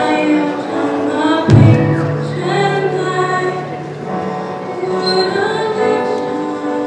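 A woman singing long held notes to an electric keyboard accompaniment, with a deep bass note struck about one and a half seconds in.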